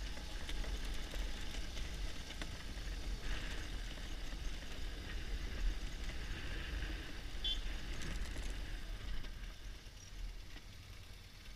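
BMW R1200GS Adventure's boxer-twin engine running at low speed on a dirt track, a steady low rumble mixed with wind and tyre noise and occasional light clicks. It grows quieter near the end.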